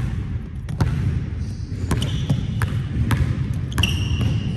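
Basketball dribbled on a hardwood gym floor: repeated sharp bounces, about two a second. A few brief high squeaks come from the Nike Zoom Freak 3 shoes' rubber soles as the player cuts, around two seconds in and again near the end.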